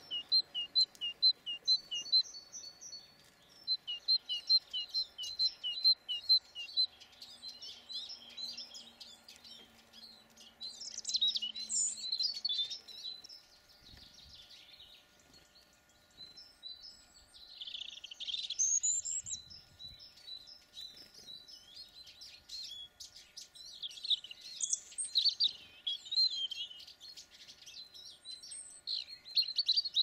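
Small songbirds singing and calling: a quickly repeated two-note phrase for the first several seconds, then scattered bursts of high twittering chirps.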